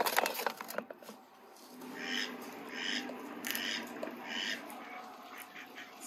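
A quick clatter of sharp knocks, then ducks quacking: several harsh quacks a little under a second apart.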